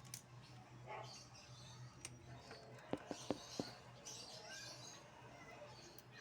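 Faint, sharp metal clicks from hand tools working on a motorcycle engine's valve adjuster, about four in quick succession around halfway through, over a steady low hum.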